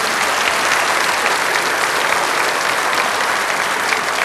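Studio audience applauding steadily, dense clapping with some laughter mixed in.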